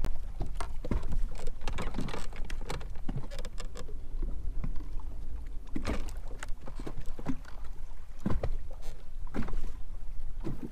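Small waves slapping and splashing against a small boat's hull in wind, over a steady low rumble of wind on the microphone, with many short knocks throughout.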